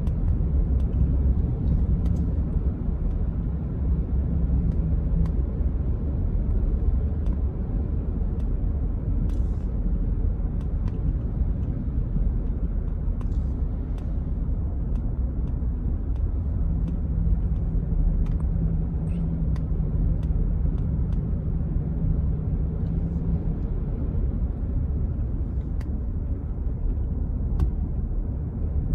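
Road noise inside a moving vehicle: a steady low rumble of engine and tyres at cruising speed. A faint engine hum rises above it twice, near the start and again in the second half.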